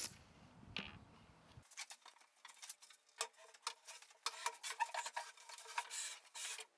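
A brief fading rush at the start, then faint scattered knocks, taps and light scrapes of a large plywood sheet being handled and laid onto the top of a homemade table saw.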